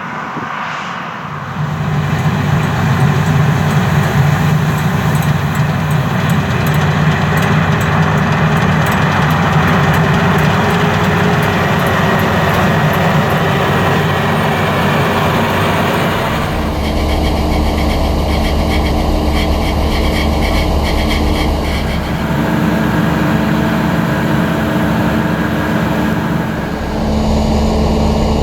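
CLAAS Lexion 750 combine harvester running steadily, its Caterpillar C13 six-cylinder diesel and threshing gear making a continuous machine noise. It gets louder about two seconds in, and past the middle it shifts to a deeper, throbbing tone.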